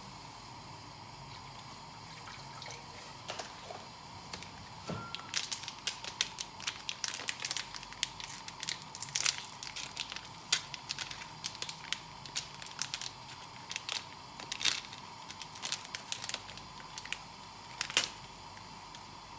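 Irregular crinkling and sharp clicks, as of small objects or packaging being handled, over a faint steady hum. The clicks start about a quarter of the way in and stop shortly before the end.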